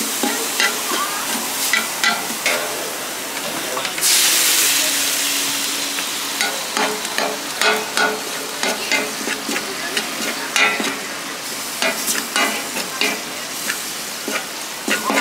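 Tantuni meat (veal and lamb) sizzling in a hot pan while it is stirred and scraped, with frequent sharp clicks of a utensil against the pan. About four seconds in the sizzling surges into a louder hiss for a second or so.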